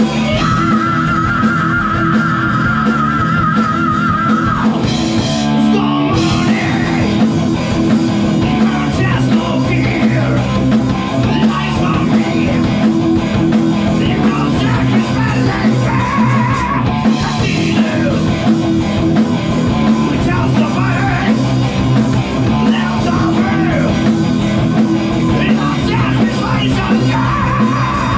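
Loud rock music with guitar, drums and sung, shouted vocals. A held, wavering high note opens it, followed by a short break about five seconds in.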